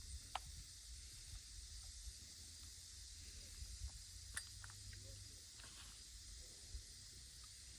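Quiet outdoor ambience: a steady faint high hiss over a low rumble, with a few soft clicks.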